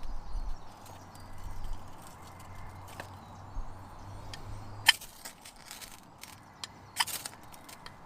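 A few sharp knocks or cracks, the loudest about five and seven seconds in, over a low rumble.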